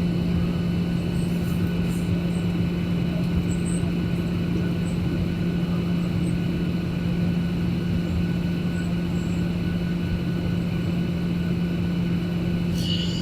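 Steady airliner cabin noise during the landing approach: engine and airflow drone with a constant low hum.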